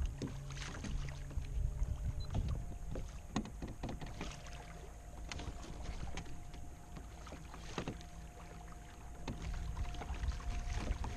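Water sloshing and splashing along a kayak's hull as it cruises under electric motor power, with a faint steady whine.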